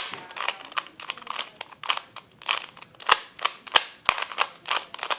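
A 2x2 Rubik's cube being turned quickly by hand: quick, irregular plastic clicks and clacks as its layers snap round, several a second.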